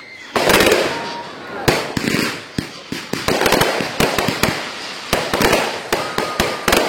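Fireworks going off: a steady run of sharp bangs, one or two a second, with crackling between them.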